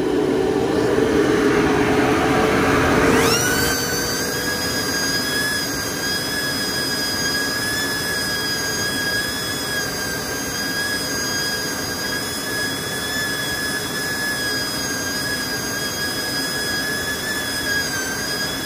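AC Infinity 10-inch inline duct fan rushing air. Its pitch rises over the first three seconds as it ramps up toward its top speed, level 10. About three seconds in, a steady high whine sets in as a handheld vane anemometer is held in the intake airflow, its small vane spinning fast.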